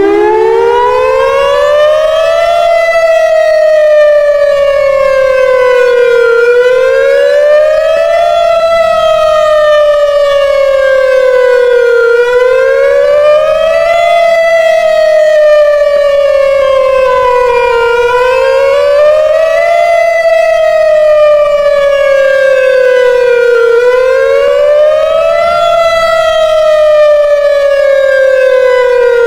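Whelen WPS-2910 electronic outdoor warning siren sounding its wail tone during a test. The pitch climbs quickly and then slides down more slowly, repeating about every six seconds. The tone is loud and rich in overtones.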